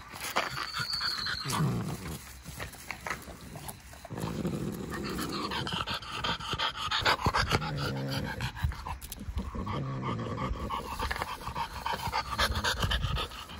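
French bulldog panting with heavy, rough breathing close to the microphone.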